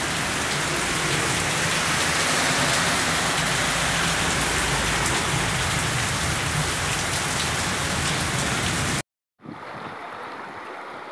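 Heavy rain falling steadily on pavement and garden, a loud, dense hiss. It cuts off suddenly about nine seconds in, and after a short gap a much quieter rushing of floodwater takes over.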